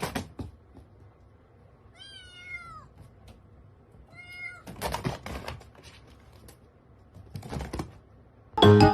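A domestic cat meowing twice: a longer meow about two seconds in and a shorter one about two seconds later, between a few scattered knocks and bumps.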